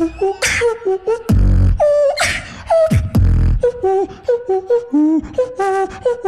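A beatboxer performing a battle routine into a handheld microphone. Deep bass drops about a second and a half and three seconds in, with sharp snare clicks and a hummed melody line stepping in pitch over the beat.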